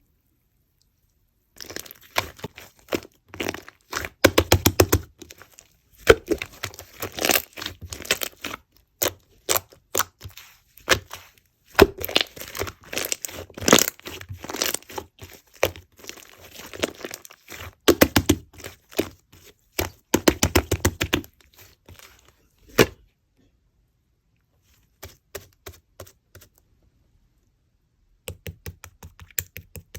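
Slime being squeezed and pressed by hand, making dense crackling and popping clicks. The clicks break off for a few seconds about two-thirds through, come back sparsely, and end in a quick, even run of small clicks.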